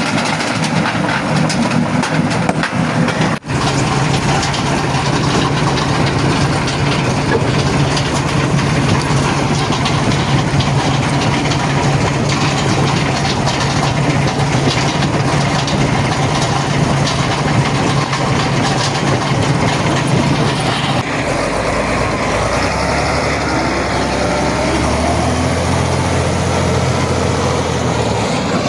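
Primary rock-crushing jaw crusher running under load: a steady machine hum under dense, continuous grinding and clattering of rock being broken. It is briefly interrupted about three seconds in, and near the end it changes abruptly to a deeper engine drone.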